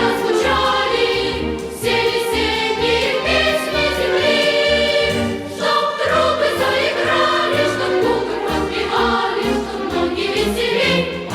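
Music: a choir singing over an instrumental accompaniment.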